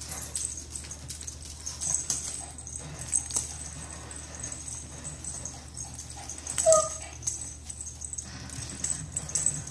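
Black cat playing with a tinsel wand toy on a wooden floor: faint scuffling and rustling, with one short, high animal cry about two-thirds of the way through.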